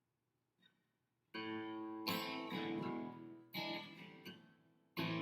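Guitar strumming the song's introduction chords, starting about a second in after a brief silence, each strum left to ring.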